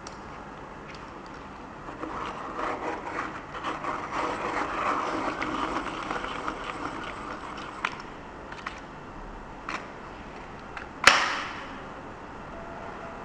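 A pencil being turned in a small plastic manual pencil sharpener, the blade shaving the wood in a rough rasping scrape for about five seconds. A few light plastic clicks follow, then one sharp knock near the end.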